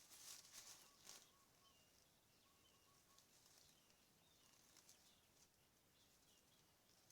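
Faint outdoor ambience with small birds calling: short high chirps repeat every half second or so, and a quick run of lower notes comes in the first three seconds. Brief hissy rustles sound in the first second or so.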